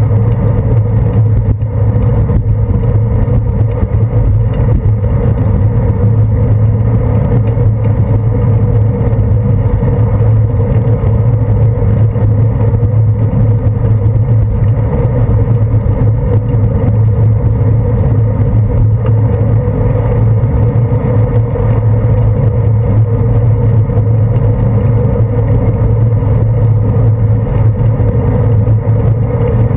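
Steady, loud low rumble and hum of riding noise picked up by a handlebar-mounted GoPro Hero 2 on a moving bicycle, with motor traffic running alongside. It holds even throughout, with no sharp sounds standing out.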